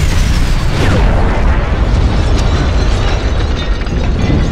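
Two gas cylinders exploding inside a microwave oven: a loud, continuous, deep rumbling boom with crackling, drawn out over several seconds as in slowed-down high-speed playback.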